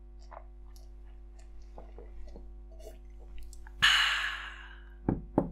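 Faint mouth and swallowing ticks from a person taking a sip of a drink, over a steady low electrical hum. About four seconds in comes a loud breathy exhale that fades over a second, then two short knocks near the end.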